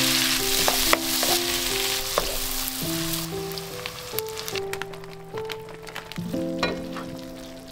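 Bacon and onions sizzling in a hot frying pan, loud for about the first three seconds and then softer, with light clicks of a utensil. Calm music with held notes plays underneath.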